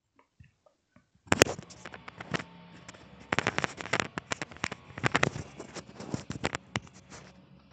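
Backstage ambience from the played video: a steady noisy background dense with irregular sharp clicks and crackles, starting about a second in.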